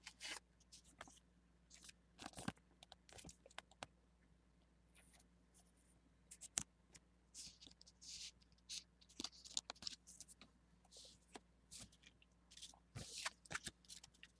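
Faint rustling and scraping of a trading card being slid into a plastic card sleeve, with scattered small clicks and crinkles of the plastic.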